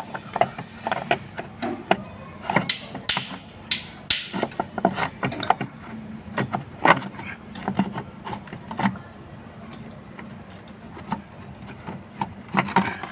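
Metal engine parts clinking, knocking and scraping irregularly as they are worked loose and handled by hand while the oil cooler of a Jaguar diesel engine is removed. The sharpest clinks come about three to four seconds in, over a faint steady low hum.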